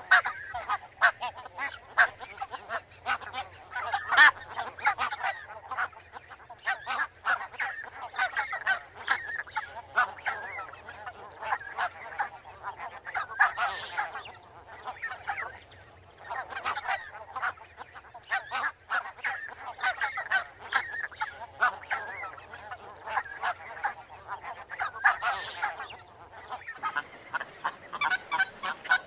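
Barnacle geese calling: many short, overlapping honks, with a few brief lulls.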